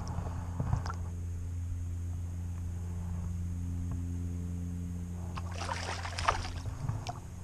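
Steady low electrical-sounding hum throughout, with water sloshing and splashing around a landing net held in the lake, a light slosh near the start and a louder splash about six seconds in.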